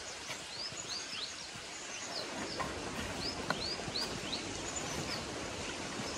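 Small birds calling: short, high chirps, each a quick falling note, repeated irregularly throughout, over a faint steady outdoor background.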